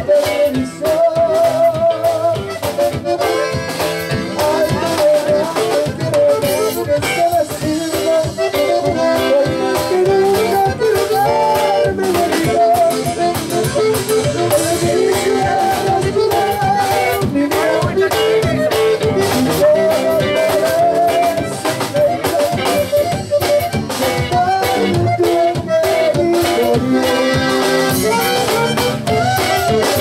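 Live conjunto band playing: an accordion carries the melody over bass guitar, guitar and a drum kit keeping a steady beat.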